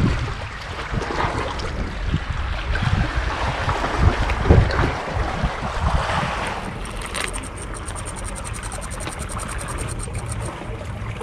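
Wind on the microphone and sea water washing among concrete tetrapods. From about six and a half seconds a small hole-fishing reel ticks rapidly and evenly for about four seconds as line pays out into the gap.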